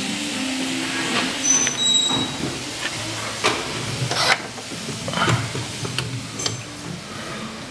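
A glass-panelled door being handled: a few short high squeaks about two seconds in, then a series of sharp clicks and knocks, over a steady hiss that drops away about halfway through.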